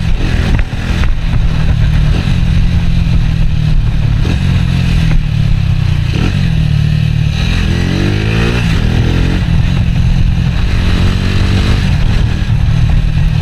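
Motorcycle engine running steadily under the rider while cruising in traffic, picking up revs with rising pitch about eight seconds in and briefly again near eleven seconds.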